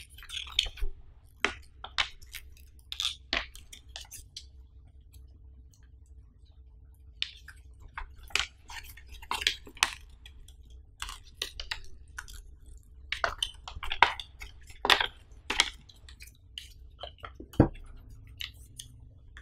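Paper quick-start leaflet handled close to the microphone: unfolded, flapped open and folded back, with irregular crinkles and rustles and a quiet spell of a few seconds near the start.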